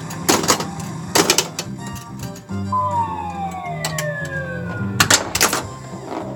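Stern Wheel of Fortune pinball machine in play: its game music runs with a stepping bass line, broken by sharp clacks from the playfield. In the middle a sound effect slides down in pitch over about two seconds.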